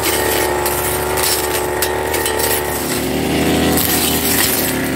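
Backpack brush cutter's small petrol engine running steadily at high speed. Its pitch dips and rises again about three seconds in as the throttle or load changes.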